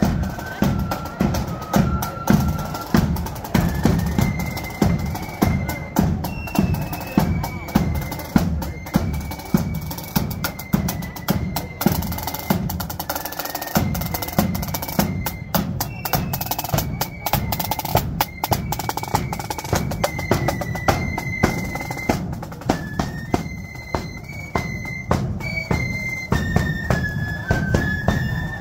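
Marching flute band playing: a high flute melody moving in steps over a steady beat of bass and snare drums, with snare rolls.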